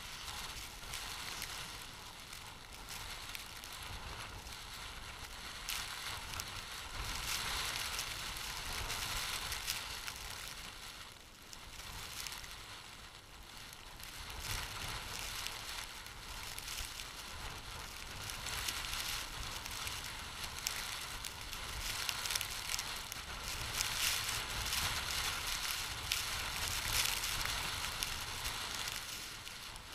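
Wind buffeting a camera microphone lying in snow: a low rumble with a crackling hiss on top that swells and eases in long gusts, dipping about eleven seconds in.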